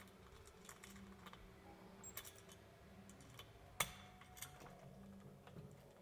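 Mostly quiet, with faint scattered clicks and taps from a wall switch and a cordless drill/driver being lined up on the switch's mounting screw, and one sharper click about two-thirds of the way in.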